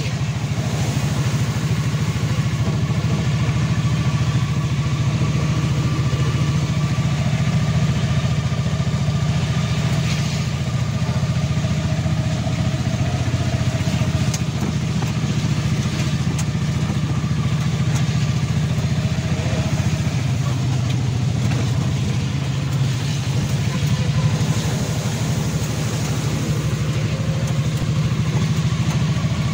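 Small vehicle's engine running steadily, heard from inside the cab, over an even hiss of heavy rain and wet tyres on a flooded road.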